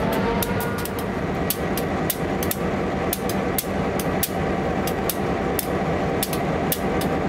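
Diesel locomotive idling with a steady low hum, while its fuel tank is being filled from a hose nozzle. Sharp clicks come a few times a second at uneven spacing through the hum.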